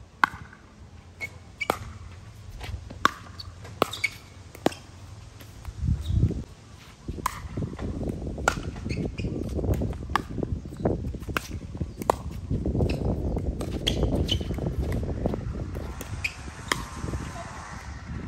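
Pickleball rally: paddles striking the plastic ball, a string of sharp pops at uneven intervals, some less than a second apart. A low rumbling noise rises under them through the middle of the stretch and fades near the end.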